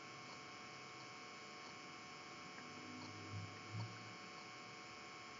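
Faint steady electrical hum and whine, the room tone of the recording, with two soft low bumps near the middle.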